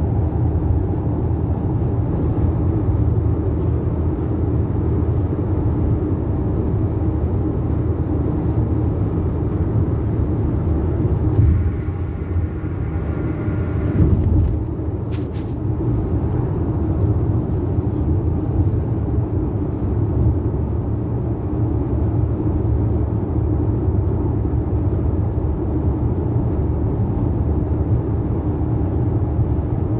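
Steady road and engine noise of a car cruising at highway speed, heard from inside the cabin as a low rumble.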